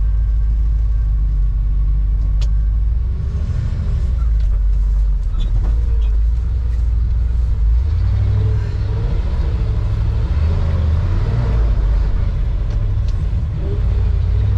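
C30 wrecker tow truck's engine heard from inside the cab as it pulls away and accelerates through the gears of its manual transmission. The engine note rises and falls, dropping off briefly a few times as the driver changes gear.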